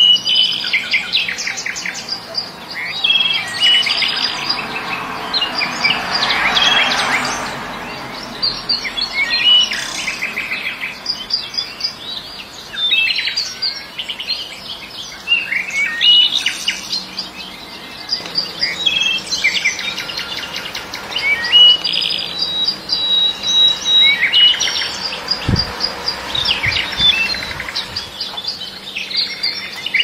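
Songbirds chirping and twittering in quick trills, rapid repeated notes and short glides, with a few briefly held whistled notes. One low knock sounds about three-quarters of the way through.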